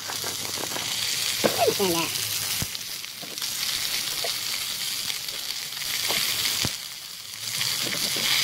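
Italian sausages sizzling as they fry in a pan, a steady hiss, with a couple of sharp knocks.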